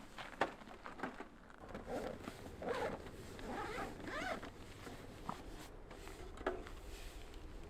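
A zipper being pulled, with a scratchy run from about two to four and a half seconds in and a few light clicks and knocks around it.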